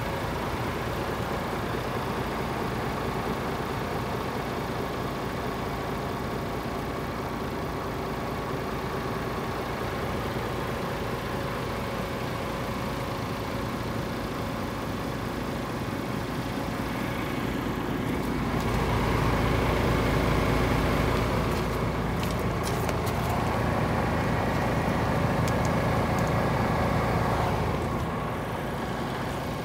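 The DAF CF440's Paccar 440 bhp Euro 6 diesel engine idling steadily, heard around the tractor unit's chassis. It swells louder for several seconds about two-thirds of the way through, with a few brief knocks of handling near the end.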